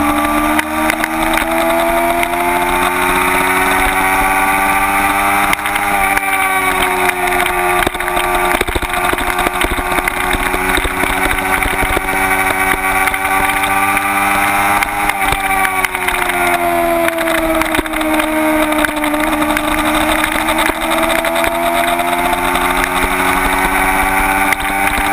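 Kawasaki Ninja 250's small parallel-twin engine running at high revs at track speed, heard from a camera on the bike. Its pitch climbs, drops sharply about six and fifteen seconds in, sinks to a low point a few seconds later and climbs again as the bike accelerates and slows through the laps, with steady wind rush on the microphone.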